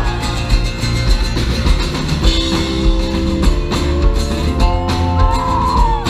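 Rock band playing live, with guitar and drum kit to the fore over a steady beat.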